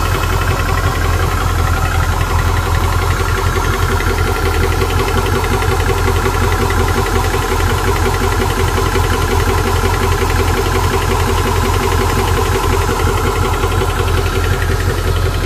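VEVOR 4500 psi portable 12-volt PCP air compressor running steadily: its pump pulses fast and evenly under a steady whir from its cooling fans.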